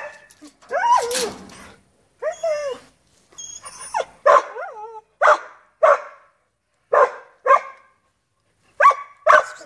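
Samoyed barking about a dozen times in short, high barks at an uneven pace, some coming in quick pairs.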